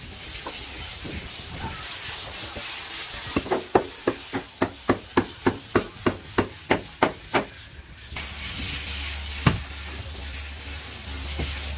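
Hammer blows on wood, a quick even run of about a dozen strikes at three to four a second, then a single strike near the end. A low steady hum comes in about eight seconds in.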